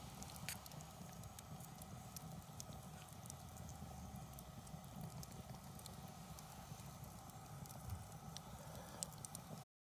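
Wood campfire crackling faintly, with scattered sharp pops over a steady low background. The sound cuts off abruptly near the end.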